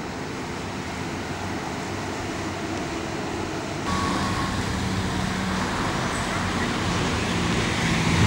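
Articulated city tram rolling along street track, a steady rumble of running noise. After a cut about four seconds in it is louder, with a steady low hum and a brief high tone as a tram creeps slowly towards a stop.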